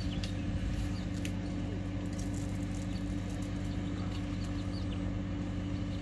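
Skid steer loader's engine idling with a steady low hum, with scattered light clicks of stones and gravel being sifted on screens.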